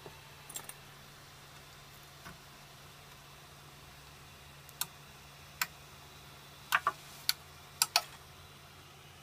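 Irregular light clicks and taps from handling a 3D printer's perforated print board with the printed part on it, about eight in all and bunched in the second half, over a faint steady hum.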